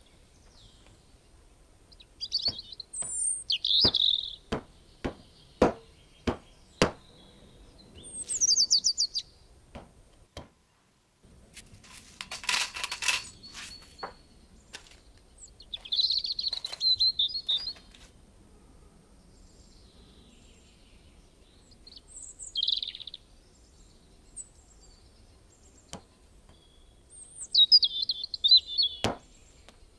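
Small birds chirping in short, scattered phrases, with a run of sharp clicks in the first seven seconds and a brief noisy burst near the middle.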